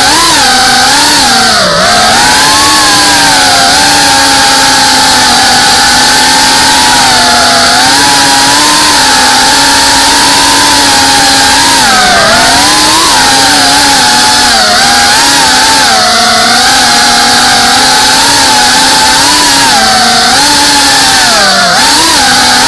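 Small GEPRC FPV drone's brushless motors and propellers whining loudly, heard close from the onboard camera. The pitch dips and climbs again every few seconds as the throttle changes in flight.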